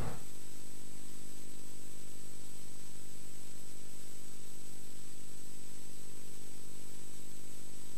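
Steady low electrical hum with many evenly spaced overtones, over a constant hiss, unchanging throughout.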